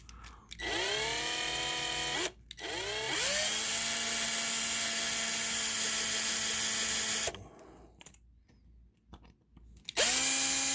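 Small high-speed rotary power tool spinning up and running in three bursts as it grinds down the drilled-out rivet posts of a diecast toy car. There is a brief first run, then a longer one of about four seconds, and a third starting near the end, each rising in pitch as the motor comes up to speed.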